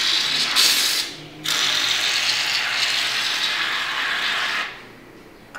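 Aerosol can of shaving foam spraying foam in two long hissing bursts, the first stopping about a second in and the second running until a second before the end.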